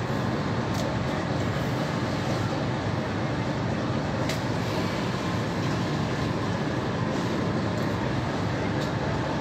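Fishing boat's engine and deck machinery running, an even drone with no change in level, with a few faint clicks.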